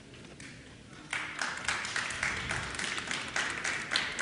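Audience applauding, starting about a second in after a brief lull.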